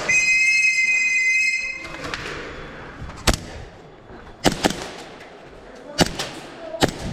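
A steady high-pitched tone held for about two seconds, then sharp single airsoft gun shots, a few scattered over the next few seconds and a pair near the end.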